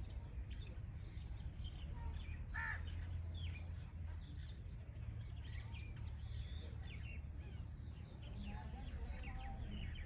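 Several wild birds calling with many short chirps, and one louder call about two and a half seconds in, over a steady low rumble.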